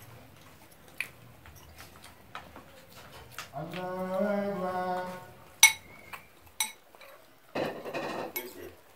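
Spoons clinking and scraping against plates during a meal, scattered single clicks with the sharpest clink a little past halfway. A person's voice holds one drawn-out sound for about a second and a half around four seconds in, and there is a short noisy rustle near the end.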